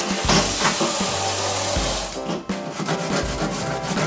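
Tap running hot water to fill a container, shutting off about two seconds in, over background music with a steady beat.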